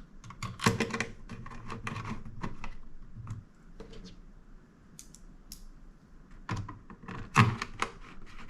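Small sharp clicks and taps of a screwdriver driving T10 Torx screws into a mini PC's metal chassis, in two busy bursts with scattered ticks between.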